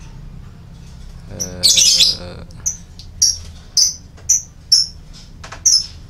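Caged canaries chirping: one louder, fuller call about a second and a half in, then short high chirps repeating about twice a second.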